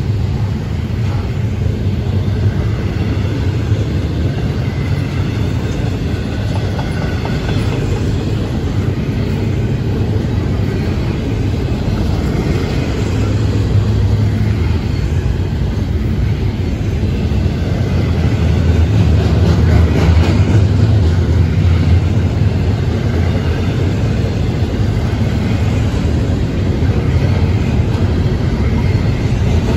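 Freight cars of an intermodal train rolling past, their steel wheels running steadily on the rails.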